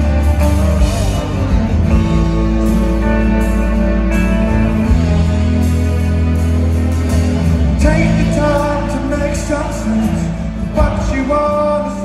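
Live rock band playing a slow song, heard from the arena audience: held bass notes and guitar chords, with a male voice singing from about eight seconds in.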